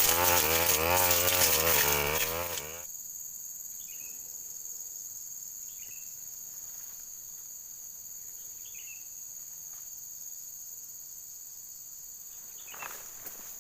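Brush cutter engine running with its speed wavering, then shutting off abruptly about three seconds in. After it stops, insects drone steadily at a high pitch, with a few faint short chirps and a brief rustle near the end.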